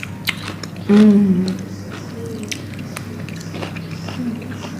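Close-up mouth sounds of eating: chewing and biting with scattered sharp crackly ticks. About a second in, a short hummed vocal sound rises above the chewing.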